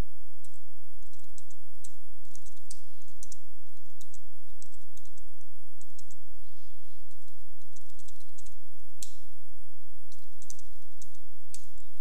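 Typing on a computer keyboard: keystrokes in short, irregular runs, over a steady low hum and a faint high whine.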